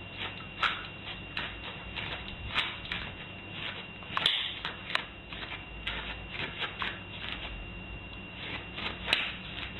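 A dog's claws scratching and scrabbling at a doormat in quick, irregular strokes, a few of them louder.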